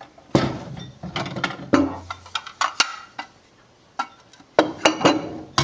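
Ceramic plates and dishes being handled and set down: a run of irregular knocks and clinks.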